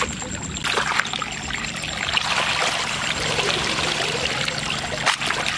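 Muddy water trickling and dripping out of a plastic mesh basket of live eels as it is lifted from a ditch, with one sharp knock about five seconds in.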